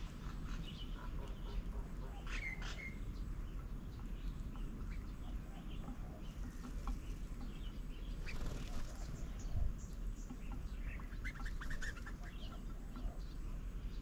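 Small birds chirping, short scattered calls throughout, busiest around two seconds in and again near the end, over a steady low rumble.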